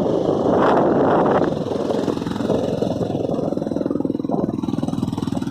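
Vehicle engine running steadily. Heavy wind buffets the microphone for the first second and a half, then dies down, leaving the engine's steady hum more plainly heard.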